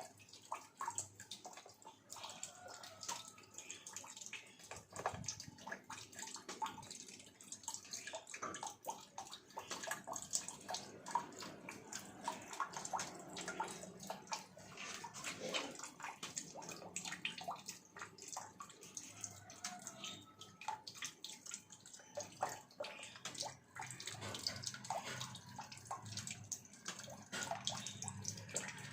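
Water running from a faucet in a thin stream, splashing and dripping irregularly as a cat drinks from it.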